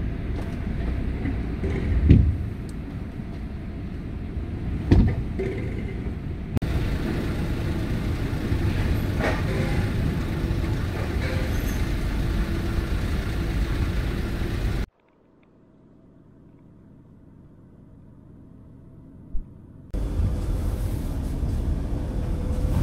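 Steady low rumble of a motorhome's engine and tyres heard from inside its cab as it drives slowly onto the Eurotunnel shuttle train, with two heavy thumps about three seconds apart. The rumble drops out suddenly for about five seconds near the end, then comes back.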